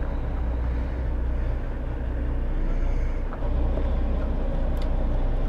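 Steady low rumble of a charter boat's engine running on an offshore trip, with a couple of faint clicks near the end.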